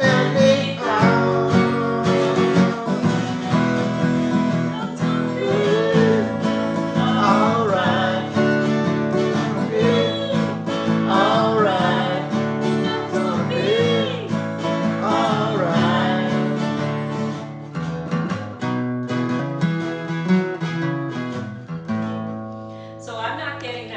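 Guitar music: chords played under a melodic line of bending, wavering notes, getting quieter over the last few seconds.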